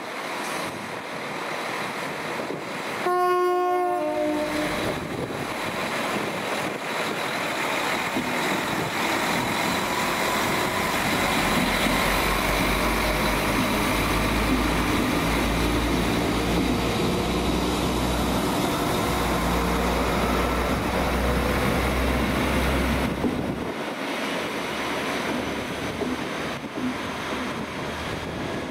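A train sounds a short two-note horn, high then low, about three seconds in, then passes with a loud steady rumble and rail noise that drops away about twenty-three seconds in.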